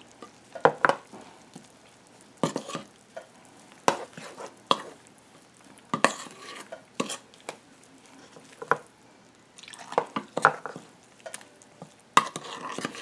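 Metal spoon stirring and scraping a wet curry paste of blended garlic and ground spices around a bowl, in irregular short clicks and scrapes.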